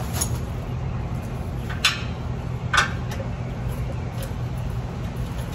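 A wrench working the motor mounting bolts of an air compressor loose: two sharp clinks about a second apart, over a steady low hum.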